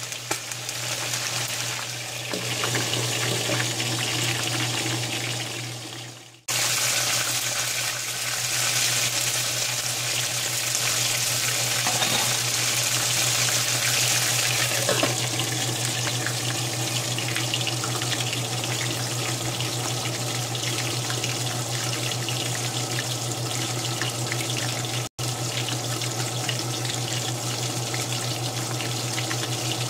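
Chicken wings frying in hot oil in a cast iron skillet: a steady sizzle over a steady low hum. The sound cuts out abruptly twice, once about six seconds in and once near the end.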